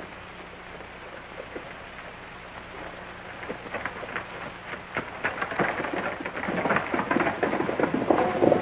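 Steady soundtrack hiss, then a dense clatter of rapid knocks that starts about three and a half seconds in and grows louder. Music comes in near the end.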